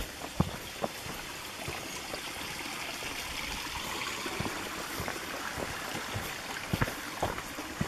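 Small woodland stream trickling over rocks, the water sound swelling in the middle, with footsteps on a leaf-covered dirt trail.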